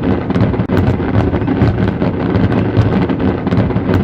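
Fireworks display at full intensity: many shells bursting in quick succession, merging into a loud, continuous rumble with sharp cracks all through it.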